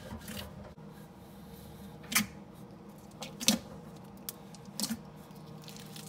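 Thick basic slime being worked, giving sharp sticky clicks and slaps four times, each a second and a bit apart, over a steady low hum.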